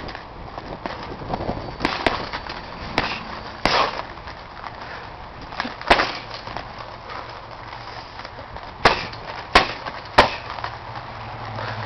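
Gloved punches and kicks landing on a hanging heavy punching bag: about eight irregularly spaced thuds, the loudest near the middle and a quick run of three near the end.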